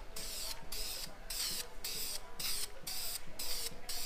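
Aerosol can of VHT black wheel paint spraying in short, regular bursts, about two a second, as black paint goes onto a chicken-wire grille mesh.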